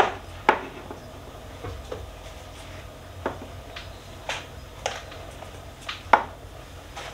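Plastic food containers and jars being set down and shifted on a kitchen cupboard shelf, a series of separate clacks and knocks, the loudest about six seconds in.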